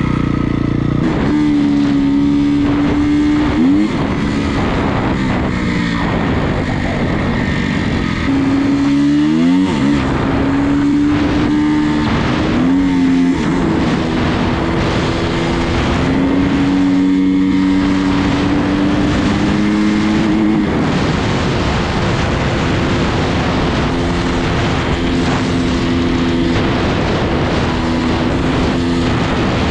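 Honda CRF250R's four-stroke single-cylinder engine running hard at road speed. Its pitch climbs and drops sharply with several gear changes in the first half, then holds fairly steady. A rushing noise of wind and tyres runs under the engine.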